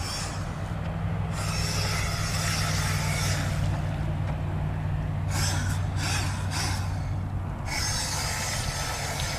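Electric RC speedboat (Nikko Sea Ray on a 9.6 V Ni-Cd pack) running on the water: a hissing rush that comes and goes in spells of a few seconds as it is driven, over a steady low hum.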